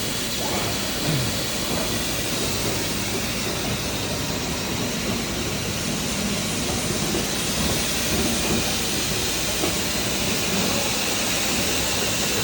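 Spindle of an MTE BF 4200 CNC bed milling machine running unloaded at a steady speed: a steady whirring hiss.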